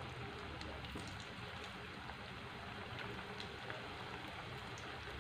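Battered chicken pakodi pieces deep-frying in hot oil, a steady sizzle with scattered faint pops.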